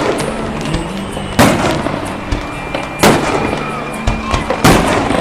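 Fireworks shells bursting in the air: three loud booms about a second and a half apart, with smaller pops between.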